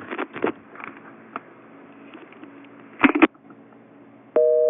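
Telephone handset handling: light clicks and a brief loud clatter about three seconds in. Near the end, one half-second burst of a steady two-pitch telephone tone, the pitches of a busy signal, that cuts off suddenly.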